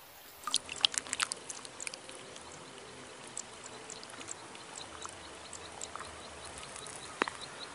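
Shallow pond water: a quick cluster of small splashes and drips about half a second in, then scattered single drips over a faint steady hiss.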